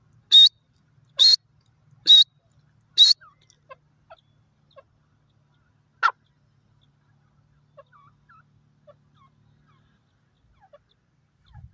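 Grey francolin calling close by: four loud, sharp, high calls about a second apart, then one more a few seconds later, with faint small chirps after.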